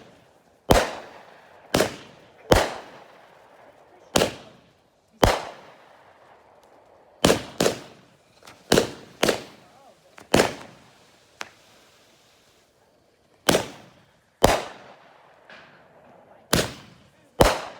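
Fireworks going off: a string of about fifteen sharp bangs at uneven intervals, roughly one a second, each with a short echoing tail.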